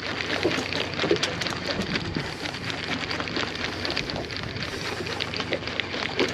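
Wind buffeting the microphone with water splashing and lapping around a small fishing boat at sea, a steady rushing hiss broken by many small crackling splashes.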